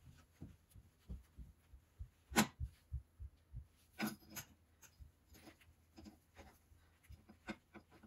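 Handling noise from a gas burner tube being worked into a metal furnace's burner port: scattered soft knocks and clicks. The sharpest click comes about two and a half seconds in, and a close pair follows about four seconds in.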